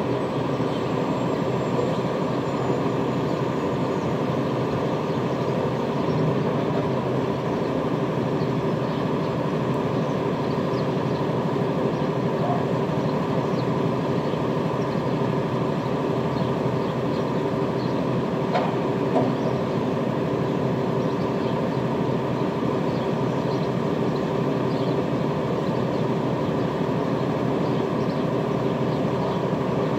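A steady, unchanging mechanical drone, with a few faint ticks scattered through it.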